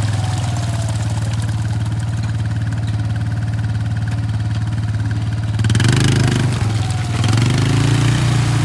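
ATV engine idling steadily with a fast, even pulse, then revved up and down from about five and a half seconds in as the quad, stuck in a mud rut, is given gas to work it free.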